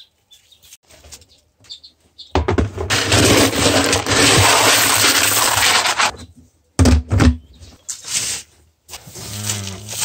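Dried corn kernels being scooped out of a plastic feed bin with a small plastic tub: a few seconds of grain rushing and rattling, followed by a couple of sharp knocks.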